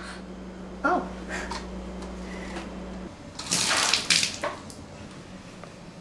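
Water poured from a cup splashing onto a hard floor, about three seconds in and lasting a little over a second. A brief vocal sound comes about a second in.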